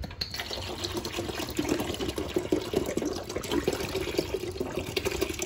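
Water pouring from an upturned plastic water bottle into the plastic reservoir of a Frigidaire countertop ice maker, gurgling steadily with rapid pulses as the bottle empties.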